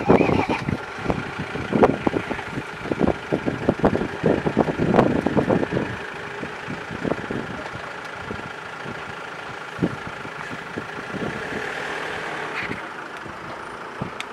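A vehicle engine running steadily, with a flurry of short, sharp cracks and knocks through the first six seconds.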